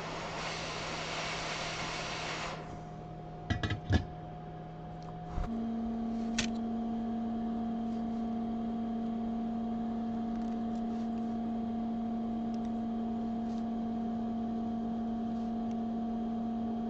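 Hot-air rework station blowing with a steady hiss over a reballed BGA chip; the airflow stops after about two and a half seconds. A few sharp clicks follow, then from about five seconds in a steady machine hum runs on and cuts off suddenly.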